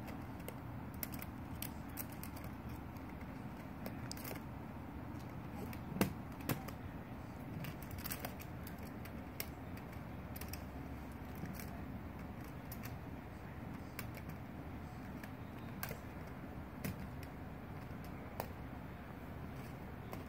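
Irregular light clicks and taps of a plastic treat cube as a rabbit noses and shoves it across carpet, with one sharper knock about six seconds in.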